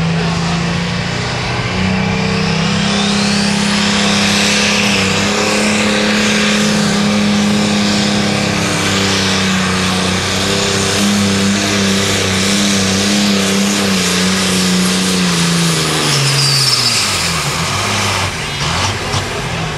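Light limited super stock diesel pulling tractor under full throttle, dragging the weight sled: the engine revs up about two seconds in with a high whine rising over it, holds a loud, steady pitch, then its revs fall away over the last few seconds.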